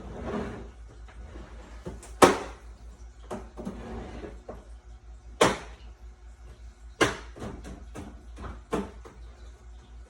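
Plastic knocks and clicks from a GE dehumidifier's parts being handled and fitted back together. There are several separate sharp knocks, the loudest about two seconds in, with smaller taps between them.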